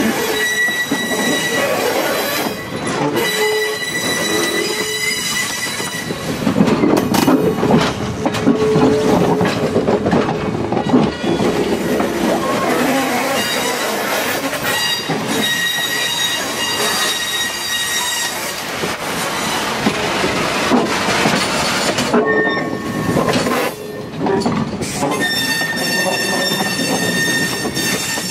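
Steel wheels of passenger railcars rolling past on a curving siding, squealing in high, steady tones that come and go, over continuous rolling noise with scattered knocks from the wheels.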